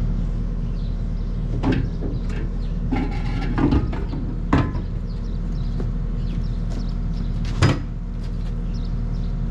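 A steady low engine drone with a handful of knocks and clanks over it, the loudest one near the end.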